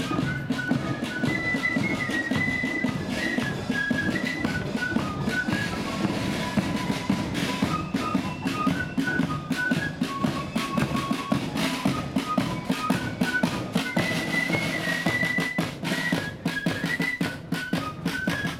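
Marching flute band playing a march: a melody on flutes over rattling side drums, a steady bass drum beat and cymbals.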